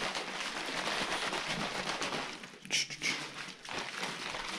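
A plastic protein shaker bottle of whey protein being shaken hard: a continuous fast rattling swish of the contents, with a couple of sharper knocks about three seconds in.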